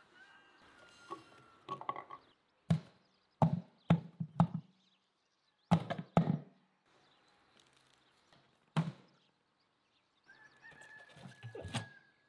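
Garlic cloves and cabbage wedges dropping and being pressed into a large plastic jar, a series of separate dull knocks several seconds apart.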